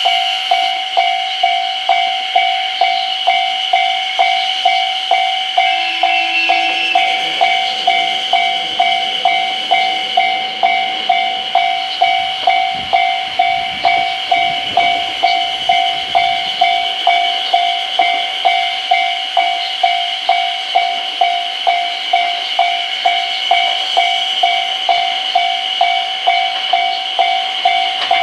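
Japanese level-crossing warning alarm ringing with even strikes about twice a second. About seven seconds in, a diesel train starts to rumble past under it, fading out around seventeen seconds.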